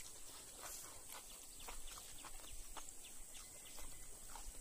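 Faint outdoor ambience: a steady high hiss with many short, scattered high ticks.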